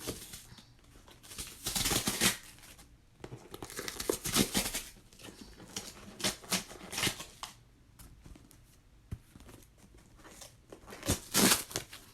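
A cardboard shipping box being opened by hand: tape and packaging tearing and crinkling in four bursts, the loudest near the end.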